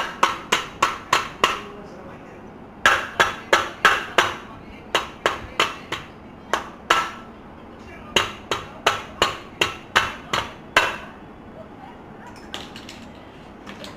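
Hammer blows on an office chair's gas-lift (hydraulic) cylinder, sharp strikes about three to four a second in runs of several with short pauses between them. A few fainter taps come near the end.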